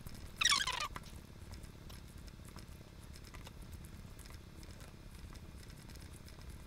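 Metal spoon mixing rice with chili sauce in a small ceramic bowl: faint scraping and stirring strokes, with one louder stroke about half a second in.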